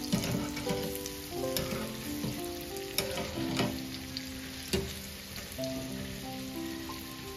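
Dahi vada batter balls frying in hot oil, a steady crackling sizzle broken by a few sharp clicks. Background music with a gentle melody of held notes plays over it.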